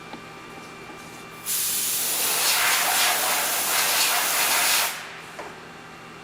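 Compressed air hissing from a blow gun in one steady blast of about three and a half seconds, starting and stopping abruptly, as chips are cleared off a freshly machined aluminium part.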